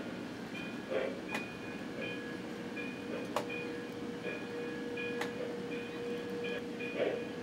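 O-scale model freight train rolling along its track: a steady running hum with a few sharp clicks about two seconds apart, and louder swells near the start and again near the end.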